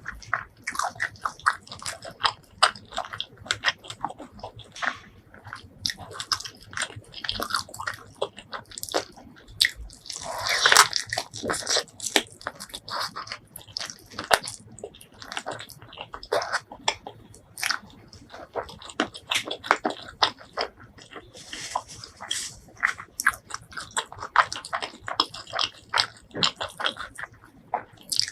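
Close-miked mukbang eating: a person biting and chewing with wet mouth clicks and smacks, and one longer, louder noisy stretch about ten seconds in.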